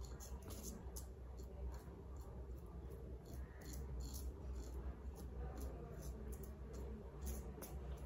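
Merkur 34C double-edge safety razor with a Wilkinson Sword blade scraping through lathered stubble on the upper lip and chin, a quick irregular series of short, crisp scratching strokes.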